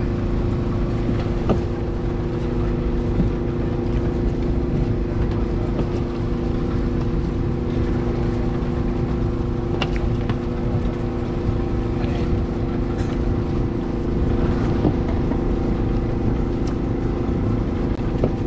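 A motor engine running steadily at an unchanging speed, a constant low hum.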